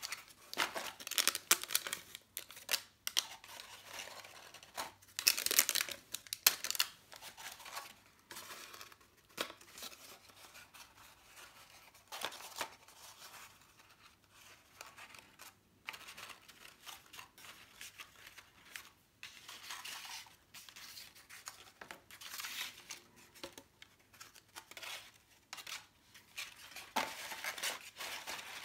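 Paper flower petals rustling and crinkling as hands bend and press the layers together. The sound comes in irregular bursts, loudest about a second in and again around five to seven seconds in.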